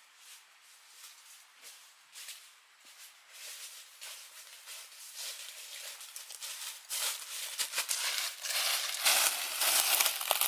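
Dry vegetation rustling and crackling in many quick, close strokes, growing louder and denser toward the end, then cutting off suddenly.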